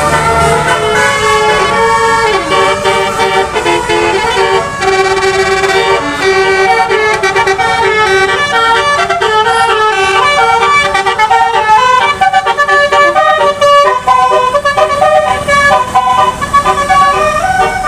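Indonesian 'telolet' bus horn, a set of electric/air horn trumpets playing a melody of short notes that change pitch several times a second.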